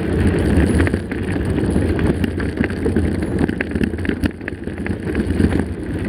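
Mountain bike rolling over a loose gravel dirt road: a steady rough rumble of the tyres on stones, with frequent small clicks and rattles from the bike.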